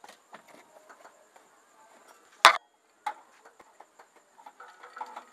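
Clicks, rustling and knocks from hands handling things in a car's boot, with one sharp loud knock about two and a half seconds in and a smaller one half a second later. A steady, faint, high insect trill runs underneath.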